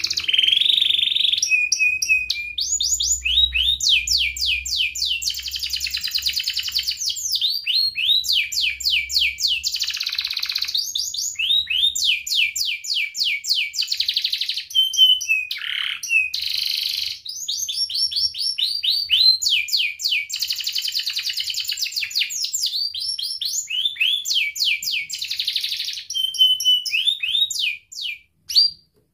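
Domestic canary singing a long, unbroken song of fast trills: each phrase is a rapid run of repeated notes that switches to a new one every second or two. The song breaks off near the end.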